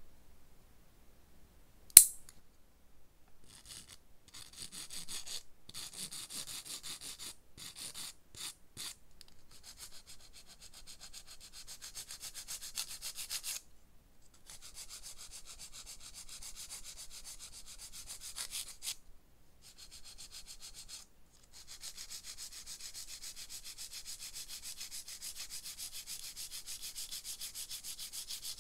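Nail file rasping in quick, even strokes across a clear plastic half-tip nail extension, in several spells with short pauses between them. A single sharp snip of a metal nail clipper about two seconds in.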